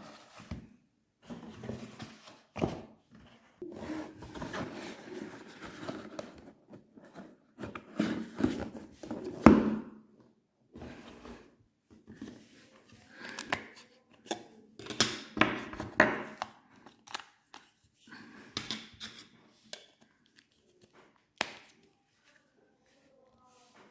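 Close-up handling noise of a phone's packaging being unboxed: irregular knocks, clicks and rustling, with a few sharper thunks.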